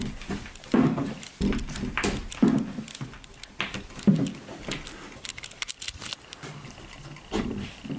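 Bifold closet door being pushed open and folded by hand: irregular soft thumps about once a second, with sharp clicks and light rattling from its panels.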